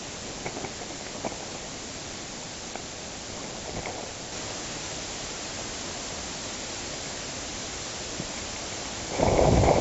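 Steady hiss with a few faint clicks. Near the end, a much louder rough, rustling noise starts abruptly.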